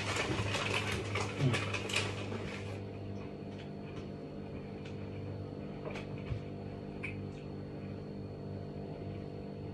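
Scuffling with clinks and knocks at a table, with a short vocal sound, for about the first three seconds; then a steady electrical hum with a few faint ticks.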